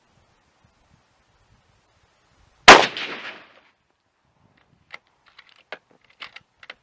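A Savage Model 10 bolt-action rifle in .308 Winchester fires one shot about two and a half seconds in, with a reverberating tail of about a second. Near the end come a few light clicks as the bolt is worked to chamber the next round.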